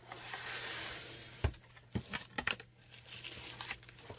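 Cardboard mailer box being opened and unpacked by hand: a rustling scrape lasting about a second, then a scatter of light knocks and taps as the contents are lifted out.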